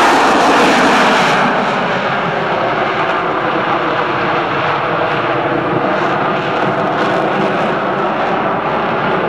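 Lockheed C-130 Hercules's four turboprop engines at full power together with its JATO rocket bottles firing, a loud steady rushing roar during a steep climb-out, easing slightly after about a second and a half.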